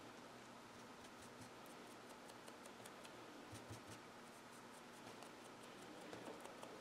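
Faint, irregular scratching and small ticks of a small paintbrush's bristles being dabbed in paint and worked off on a paper towel for dry-brushing, over a low steady hiss.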